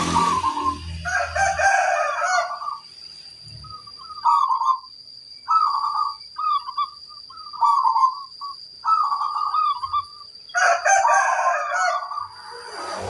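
Zebra doves (perkutut) cooing: rolling, bubbling coo phrases in bursts with pauses between, the busiest stretches near the start and near the end where calls overlap. A faint steady high whine sits underneath.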